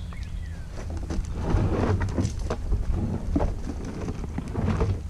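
Wind rumbling on the microphone, with a louder stretch of rustling and clattering from about one and a half seconds in to near the end. A bird chirps briefly near the start.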